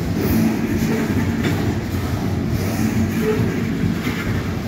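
Loaded coal hopper cars of a freight train rolling past: a steady, dense rumble of steel wheels on rail, with a few faint clicks.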